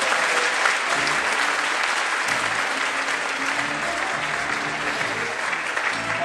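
Audience applauding steadily, with music playing underneath in short low notes.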